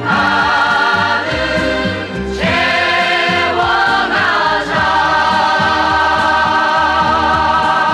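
Closing bars of a trot song: several voices holding long notes over the band accompaniment, settling into one long held chord about five seconds in.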